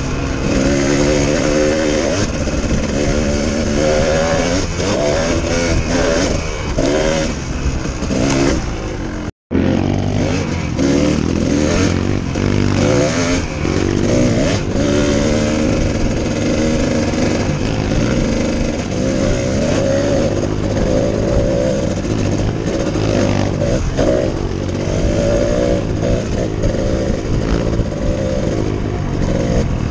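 Kawasaki KDX two-stroke dirt bike engine being ridden, its pitch rising and falling over and over with throttle and gear changes. The sound cuts out completely for a moment about nine seconds in.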